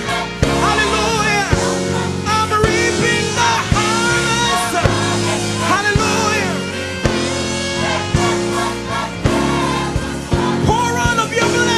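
Music: a song with a singing voice over held low chords and a steady drumbeat.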